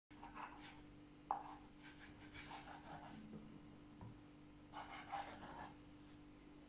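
Faint handling sounds of bread dough being worked and cut: soft rubbing and scraping in short spells, a sharp click a little over a second in, and a kitchen knife slicing through the dough, knocking once on a wooden cutting board about four seconds in, over a faint steady hum.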